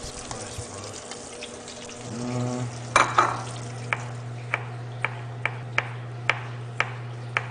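Butter and breaded fish sizzling in a frying pan, then a low steady hum comes in. From about three seconds in, a chef's knife chops garlic cloves on a cutting board in a run of sharp taps, about two a second.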